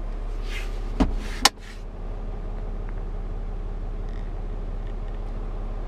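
Steady low hum in a truck cab, with two short sharp clicks about a second in, half a second apart.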